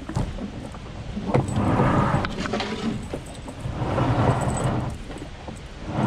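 Canoe being lowered down a rock face on a rope, heard through its own hull: two long swells of rumbling, scraping noise as it slides, with a few knocks.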